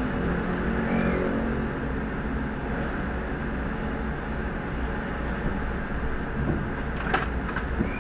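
Parked Rosenbauer fire engine's engine running steadily with a low rumble, and a sharp click about seven seconds in.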